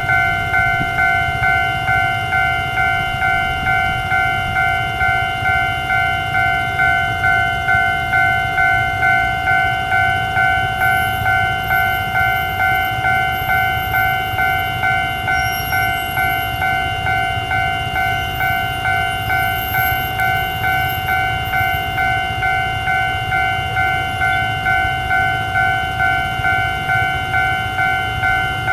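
Taiwanese railway level-crossing warning bell ringing continuously in a steady, regular ding-ding, about three strikes every two seconds, over a low steady rumble.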